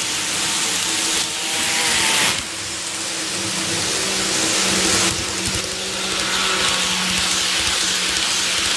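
Kato N scale TGV Lyria Euroduplex model train running on the track: a steady hiss of wheels on rail with a low electric-motor hum, swelling a little as the train comes round.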